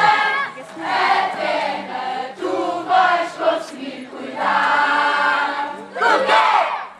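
A mixed group of children and adults singing a camp song together, with acoustic guitar accompaniment. The singing comes in short phrases, with a longer held note about halfway through.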